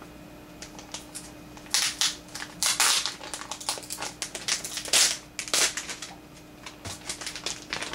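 Plastic packaging crinkling and crackling in irregular bursts as a Mini DisplayPort to VGA adapter is unwrapped by hand, starting about two seconds in.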